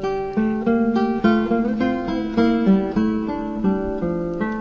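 Background music: an acoustic guitar plucking a quick run of single notes.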